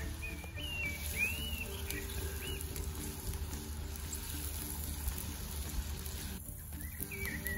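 A common blackbird singing in full voice: a run of warbled, gliding phrases through the first few seconds, then more phrases near the end.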